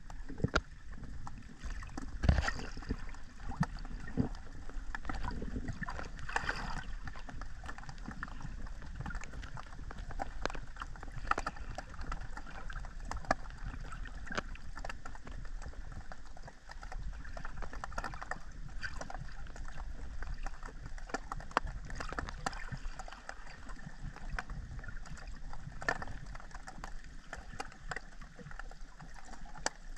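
Underwater sound picked up by a camera beneath the surface: a steady low rumble of moving water with scattered clicks and crackles, a few sharper knocks in the first few seconds.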